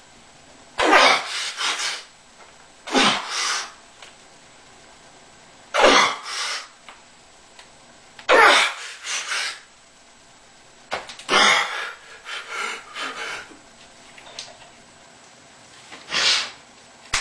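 A man's forceful, hissing exhalations of strain, in short bursts every two to three seconds, some doubled, as he bends a wrapped steel bar by hand.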